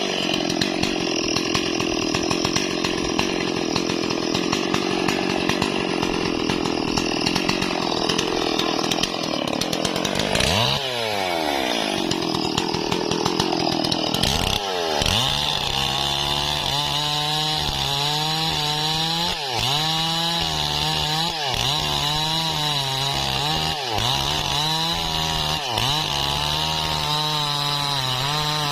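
Stihl MS440 two-stroke chainsaw cutting into wood at full throttle for about ten seconds, then, after a short drop in revs, its engine pitch repeatedly dips and climbs back every second or two as the throttle is eased and opened again.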